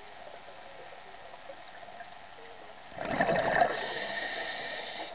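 A scuba diver's exhaled breath bubbling out of the regulator: a gurgling rush of bubbles starting about three seconds in and lasting about two seconds, over a steady faint underwater hiss.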